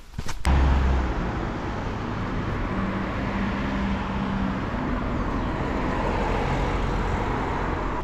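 A few footsteps, then about half a second in, steady road traffic noise: a car driving past with tyre and engine noise.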